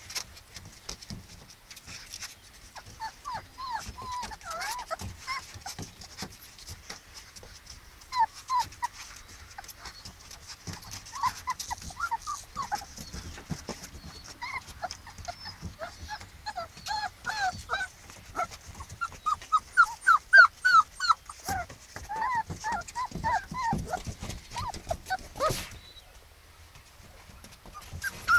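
Beagle puppies whimpering and yelping: short, high-pitched cries that come in bursts, thickest about two-thirds of the way through, with scattered ticks of their paws on the sheet beneath them.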